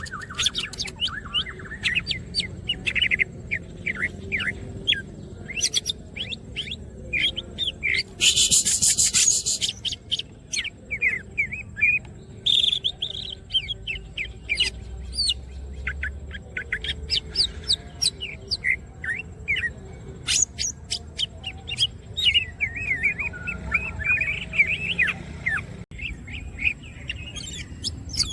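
Green cucak (greater green leafbird) singing non-stop: a fast, varied run of chirps, whistles and sharp clicks, with a harsh rasping burst about eight seconds in.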